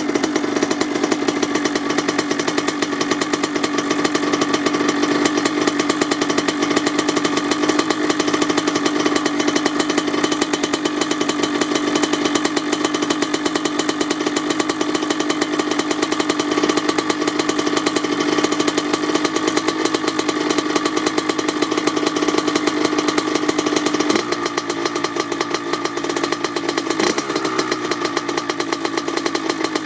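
1997 Kawasaki KX80's 80cc single-cylinder two-stroke engine idling steadily through a Dep S2 silencer as it warms up after a cold start. It drops a little in level about four-fifths of the way through and gives a brief small blip shortly after.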